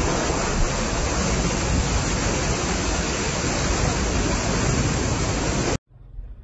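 Car tyre ploughing through floodwater on a road: a loud, steady rush of spray thrown up against the wheel and body. It cuts off suddenly near the end.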